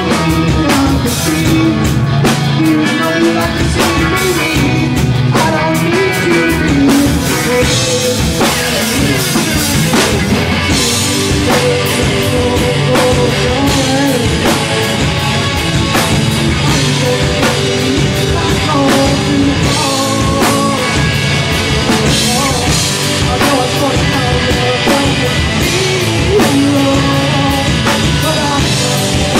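Live rock band playing: electric guitars, bass guitar and a drum kit in a loud, steady full-band groove.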